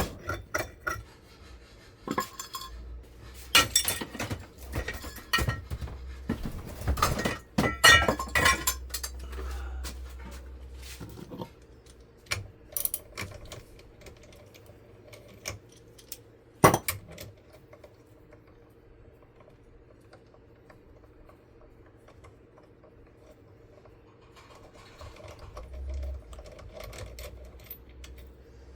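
Metal clinking and knocking of hand tools against a ceiling fan motor's metal parts as the motor is dismantled for its copper. The clinks come thick and irregular at first, with one sharp knock about two-thirds of the way through, then the work goes quieter.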